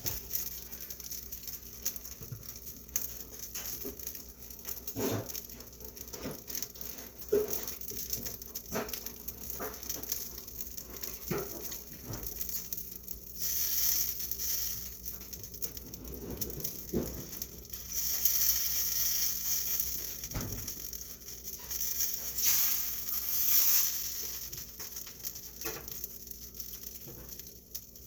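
Kitchen work while cooking: scattered light knocks and clatter of utensils and dishes, with three short spells of hissing in the second half.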